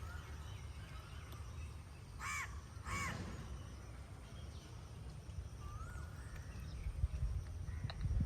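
A crow cawing twice in quick succession about two seconds in, each caw a short call that rises and falls. A thin rising bird chirp follows near the six-second mark, over a low steady rumble.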